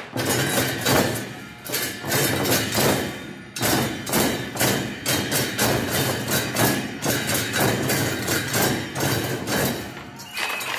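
Ensemble of large barrel drums beaten with wooden sticks in a fast, dense rhythm, with short breaks about three and a half seconds in and near the end.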